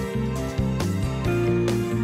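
Instrumental background music with a steady beat and sustained melodic notes.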